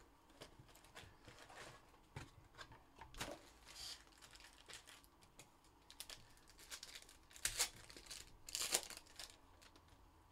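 Foil wrapper of a 2021 Panini Contenders Baseball hobby pack crinkling and tearing as it is opened by hand, with light taps and rustles from handling the box and cards. The loudest crinkles come in a few quick bursts about three-quarters of the way through.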